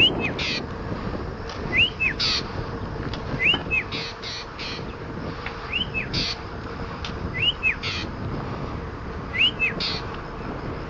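Black drongo calling again and again: six rising, whistled notes, each followed by a short second note, about every two seconds, with short harsh rasps in between.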